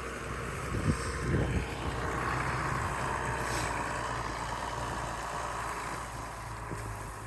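A vehicle engine running steadily with a low hum, with a couple of short knocks about a second in.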